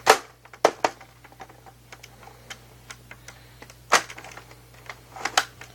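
Plastic clicks and small rattles of a Nerf Longstrike CS-6 blaster being handled and fitted together: a sharp click just after the start, others under a second in, about four seconds in and near the end, with faint ticking between.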